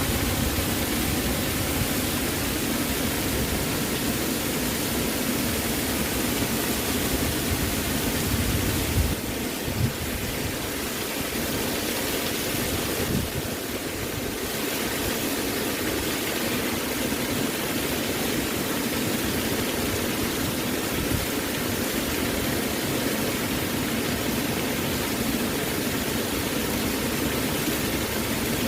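Waterfall rushing: a steady, even roar of falling water, with a brief dip in level about a third of the way in.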